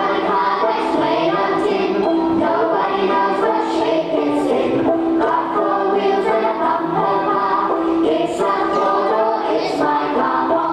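A class of young children singing a song together over an instrumental backing.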